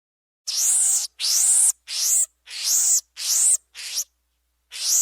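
Monkey shrieking: six short, high-pitched, raspy shrieks in quick succession, each rising then falling in pitch, and a seventh starting near the end after a brief pause.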